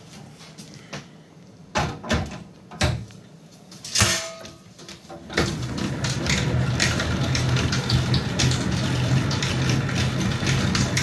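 A few metal clunks and knocks as honey frames are set into a stainless steel honey extractor drum and the lid goes on. About halfway through, the extractor starts spinning the frames to sling the honey out: a steady machine hum with light rattling that holds to the end.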